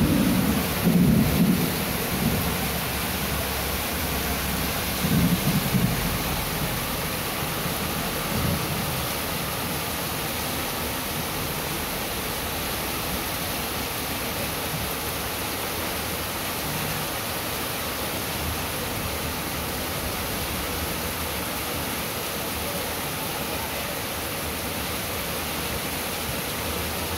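Heavy rain falling steadily on a paved street, a dense even hiss. In the first nine seconds or so, a few short low rumbles rise over it.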